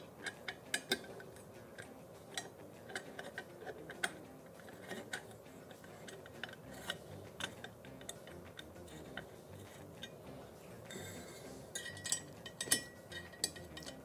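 Faint, irregular metallic clicks and ticks of a ball-end Allen wrench working a button head screw into a T-nut in aluminium extrusion, as the hex key is turned and reset in the screw head; the clicks come more closely together near the end.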